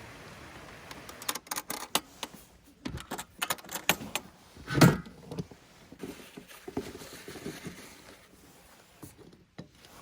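Clicks, clinks and knocks of objects being handled, with one louder thump about five seconds in.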